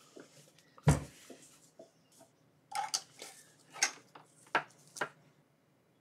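Handling noises from a laptop: a single thump about a second in, then a handful of light clicks and taps as it is set up and started.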